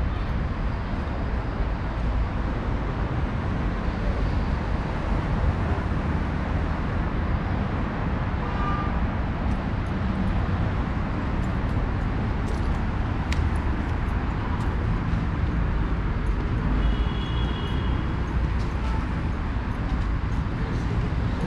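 Steady city road traffic noise: cars and buses running past.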